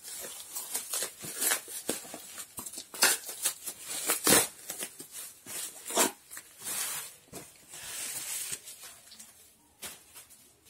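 Wrapping crackling, rustling and tearing as an individually packed mug is unwrapped by hand, in many short sharp bursts. The loudest crackle comes about four seconds in, and the handling dies down near the end.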